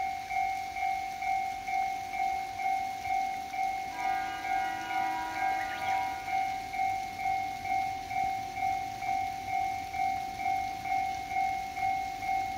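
Electronic railway warning bell ringing in a steady repeat of two-tone dings, about two and a half a second. About four seconds in, a second pitched tone sounds over it for about two seconds.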